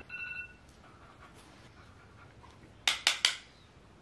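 A dog panting: three quick, sharp breaths about three seconds in. A ringing electronic tone fades out in the first half second.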